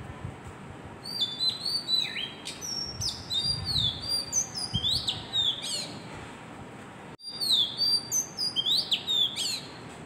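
Oriental magpie-robin singing: a run of quick, varied whistled notes, some rising and some falling, starting about a second in. The song breaks off in a brief gap just after seven seconds, then goes on.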